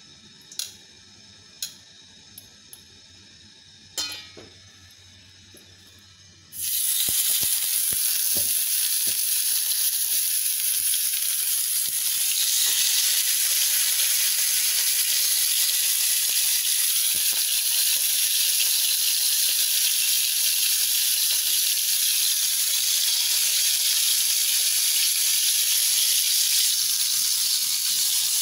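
A frying pan of hot oil, quiet at first with a few sharp clicks. About six and a half seconds in, pork steaks go into the oil and a loud, steady sizzle starts suddenly and keeps going.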